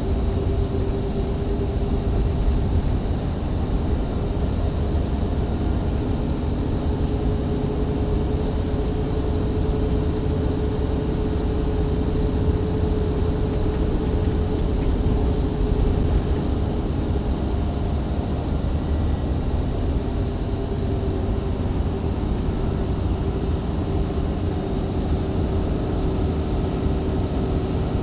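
Inside a Mercedes-Benz Citaro C2 LE hybrid bus with a Voith automatic gearbox, cruising at a steady speed on the open road: a continuous diesel engine and drivetrain drone, with road noise and a steady whine held over it.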